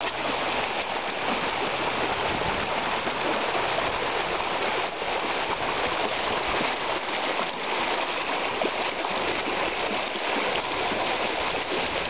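Shallow rocky creek running with a steady rush of water over stones, as golden retrievers wade and splash through it.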